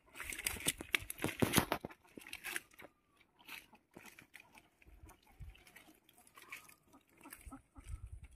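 Water hyacinth being pulled up and torn apart by hand: wet stems, leaves and root mats crunching and rustling in irregular crackles, busiest in the first two seconds.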